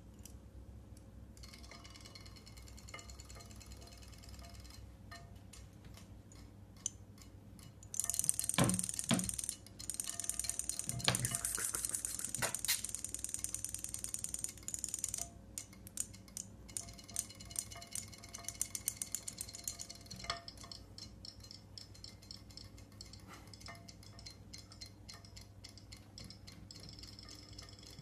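Small battery-powered robotic toy fish clicking and whirring fast as its tail motor runs, louder for several seconds in the middle, with irregular ticks and rattles throughout.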